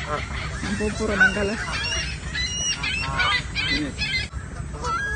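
A flock of Canada geese calling at close range: a run of short honks and clucking calls, many of them quick and overlapping, thickest in the first few seconds. A steady low rumble sits underneath.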